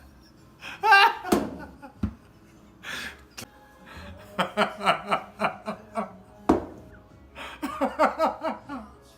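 A person laughing in runs of quick pulses, about five a second, with a high drawn-out vocal cry near the start and a few sharp knocks.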